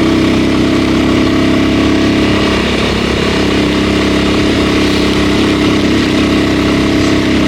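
A vehicle's engine running steadily at a constant pace on the road, with wind noise.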